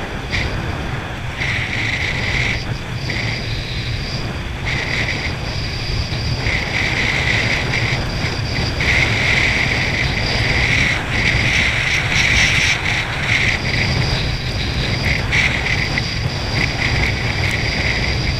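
Jet ski running flat out across open water: a steady engine drone under rushing water from the wake and wind buffeting the microphone, with a brighter hiss that comes and goes.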